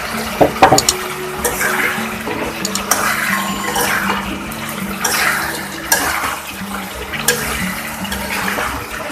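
A spatula knocks against a cooking pot a few times near the start, then stirs and scrapes through vegetables frying with spices in the pot, with a hissing sizzle about once a second.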